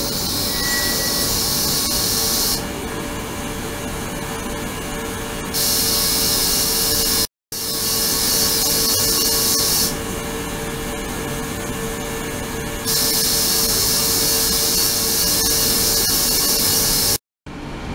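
Ultrasonic cleaning tank running, with a steady hum and the high hiss of cavitating water that switches on and off every few seconds. The sound drops out completely for a moment twice.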